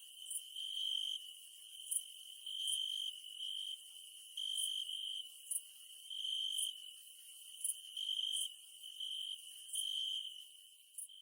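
Night insects calling: a continuous high-pitched trill that swells louder for half a second or so about once a second, overlaid with short, very high chirps repeating irregularly.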